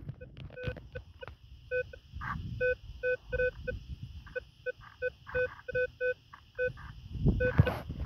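Minelab Vanquish metal detector giving a run of short beeps at the same mid pitch, one on each sweep of the coil over a target: a repeatable signal reading 11 to 12. There is a low rumble of wind and handling underneath.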